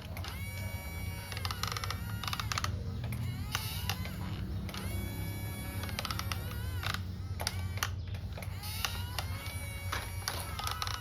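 Clicking and ratcheting of small gears, such as a toy excavator's, over a low steady hum, with a looping electronic tune recurring about every four seconds.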